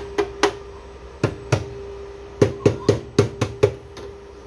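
Moving-head stage light (LB230) with its motors clicking and knocking in quick, irregular runs as the fixture moves under the controller's auto program, over a steady hum.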